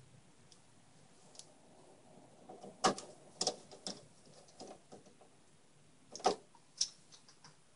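Small metal screws clicking and clinking as they are handled and sorted, with a few sharp clicks about three seconds in and a couple more after six seconds.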